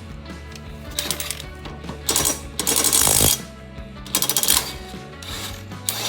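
Bursts of metallic clinking and rattling from tools or metal parts being handled, the longest and loudest near the middle, over background music.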